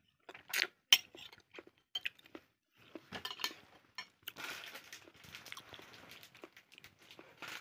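Metal spoon clinking and scraping against a ceramic plate of vegetables in broth, in scattered light taps.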